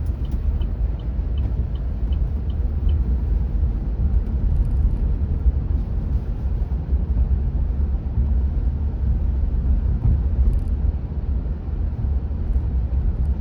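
Steady low road rumble inside the cabin of an electric Chevrolet Bolt robotaxi driving slowly on wet pavement: tyre and road noise. A faint regular ticking, about three a second, stops about three seconds in.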